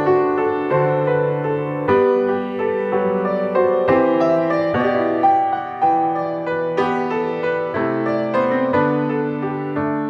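Slow, gentle piano music: held chords and a melody, the harmony shifting every second or two.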